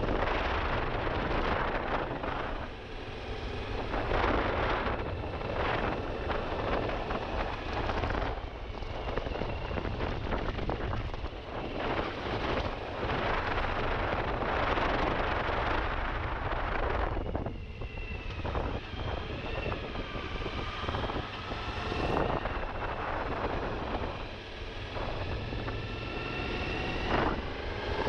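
Suzuki V-Strom motorcycle being ridden off road, its engine running under heavy wind noise on the microphone. In the last third, the engine note rises and falls with the throttle.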